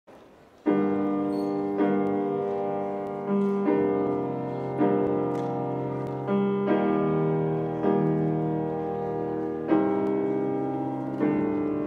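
Piano playing a slow introduction of sustained chords, starting just under a second in; a new chord is struck about every second or so and each one fades slowly.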